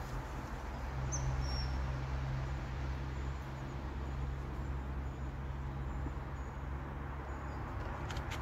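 Steady outdoor background noise: a continuous low rumble under an even hiss, with a brief high chirp about a second in.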